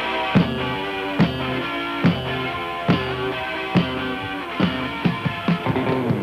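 Rock band playing an instrumental passage: sustained electric guitar chords over a drum kit beat, with a hit a little under a second apart. Near the end the drumming gets busier.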